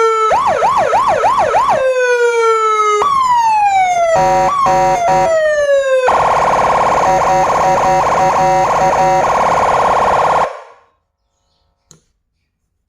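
A 12-tone, 50-watt electronic escort siren switching between its tones. First come long falling wails, a quick rising-and-falling yelp about three times a second, and a stepped hi-lo pattern. Then it moves to a rapid warble that cuts off abruptly about ten and a half seconds in, followed by a faint click near the end.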